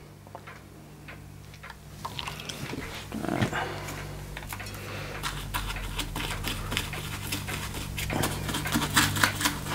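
Small bristle brush scrubbing the oven-cleaner-softened paint on the sheet-metal parts of a model steam engine, lifting the paint. A scratchy scrubbing that starts about two seconds in and grows busier.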